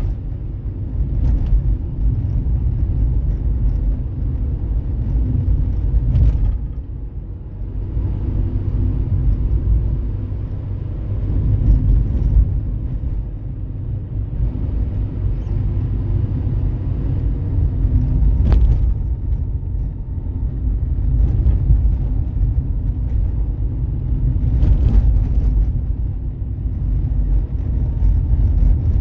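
Car on the move: a steady low engine and road rumble that swells and eases a little, with a sharp click about eighteen seconds in.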